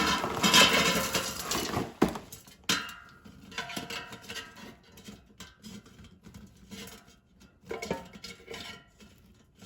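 Frozen breaded fried pickles rattling into an air fryer basket for about the first two seconds, then scattered light clicks and taps as they are arranged in a single layer.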